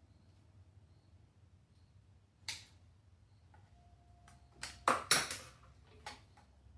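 Handling noises: a single sharp knock about two and a half seconds in, then a cluster of loud knocks and clicks around five seconds in and one more shortly after, over a low steady hum.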